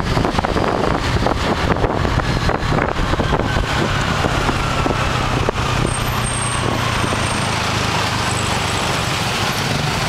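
Riding in traffic on a motor scooter: wind rushes and buffets over the microphone with road and engine noise. About halfway through the gusts ease, leaving a steady low engine hum as the scooter slows in traffic.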